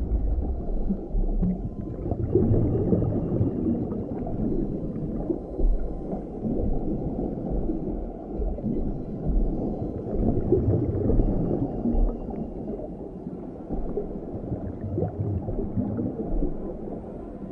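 Film underwater ambience: a muffled, dull rumble with bubbling that swells and fades, all low in pitch as if heard beneath the surface.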